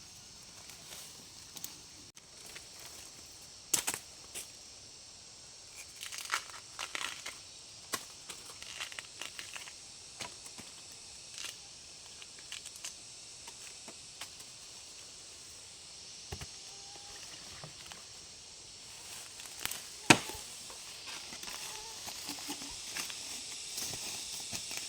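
Scattered crackling and rustling with sharp snaps, the loudest about four and twenty seconds in, over a steady high hiss.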